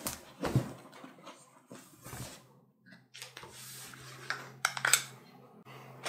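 A large cardboard graphics-card box being handled and turned over on cloth, with rustling and soft knocks. Near the end comes a quick cluster of sharp plastic clicks as a karambit knife is pulled out of its plastic sheath. A faint low hum sits underneath.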